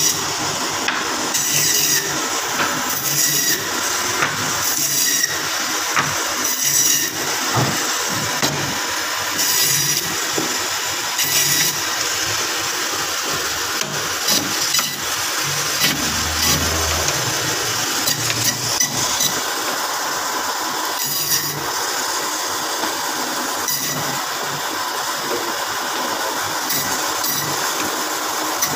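Electric meat band saw running steadily, its blade cutting through boneless beef silverside as the meat is pushed through in slices and cubes.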